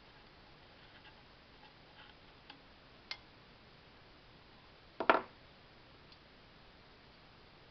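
Light metal clicks as turbocharger parts are handled, then a louder metallic clank with a short ring about five seconds in, as the turbo's drain pipe flange is fitted against the housing.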